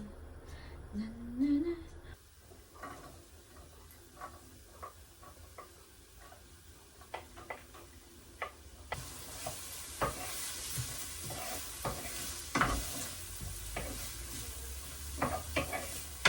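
Food sizzling in oil in a frying pan while a utensil stirs it, clicking and scraping against the pan. The sizzle gets clearly louder about nine seconds in.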